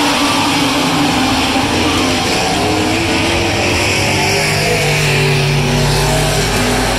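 A pack of Legends cars running around a dirt oval, several Yamaha motorcycle-derived engines heard together with overlapping pitches that rise and fall as the cars pass.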